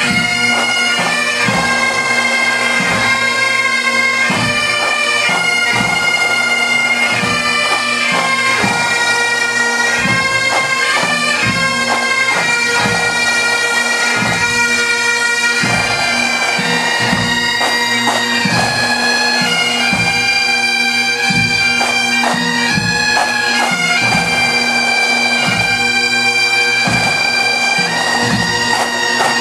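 Pipe band of Great Highland bagpipes playing a tune together over their steady, unbroken drones, with a bass drum keeping a steady beat.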